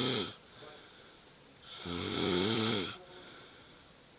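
A sleeping man snoring in a regular rhythm: the end of one snore right at the start, then one full snore lasting a little over a second about two seconds in, with a quieter breathy hiss in between.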